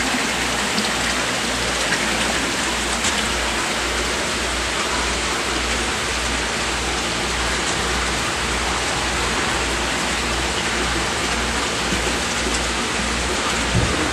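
Steady rushing and splashing of water in a seawater aquarium tank from its circulation or aeration, with a steady low hum underneath.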